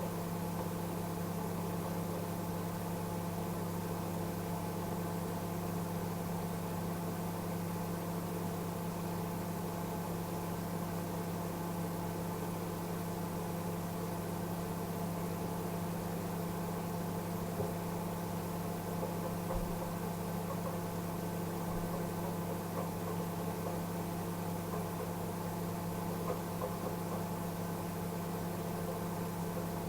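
Microwave oven running steadily with a constant low hum, heating a glass of water on a test run after its mica waveguide cover was replaced with cardboard. The steady running shows the repaired oven is working.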